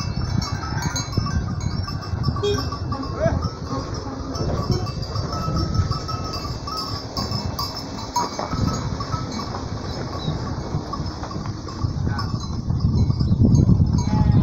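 A flock of sheep and goats walking past, with the clink of small livestock bells, over a steady low rumble of wind on the microphone. A car drives by around the middle.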